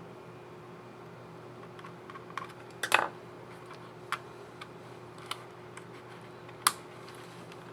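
Plastic keycap and scissor mechanism on an Asus ROG Zephyrus G14 laptop keyboard clicking as the key is fitted and pressed: a few separate sharp clicks, with a quick cluster about three seconds in the loudest.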